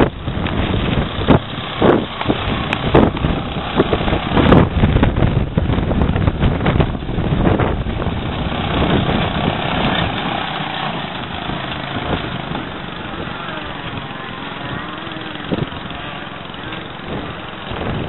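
Small engine of a motorised boat trailer running, with wind buffeting the microphone; the gusts ease off about halfway through.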